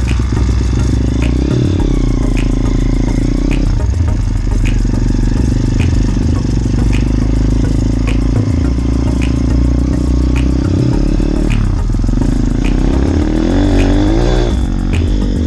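Motorbike engine running while riding, with heavy low rumble on the microphone and a light tick about once a second. Near the end the engine revs up, the pitch rising.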